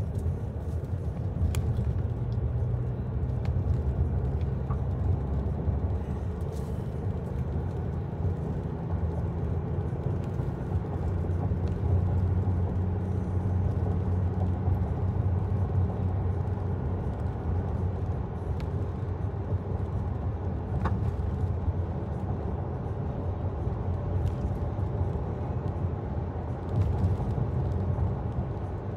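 Steady low rumble of a motor vehicle on the move, with a few faint clicks.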